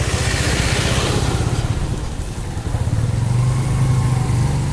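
A motor vehicle's engine running with a steady low hum, easing off briefly about two seconds in and then picking up again.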